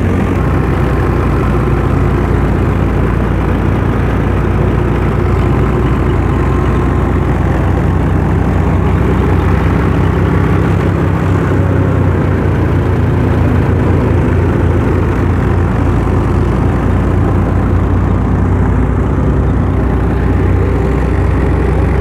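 Fiat tractor's diesel engine running steadily at a constant speed, a continuous low hum.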